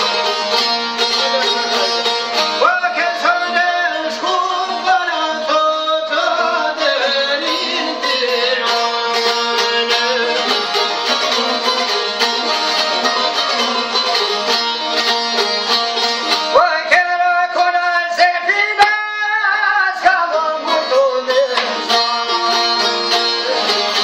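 Albanian folk song played live on plucked long-necked lutes (çifteli and sharki) with a guitar. A man's singing comes in twice, about three seconds in and again near sixteen seconds, over the steady strummed and plucked accompaniment.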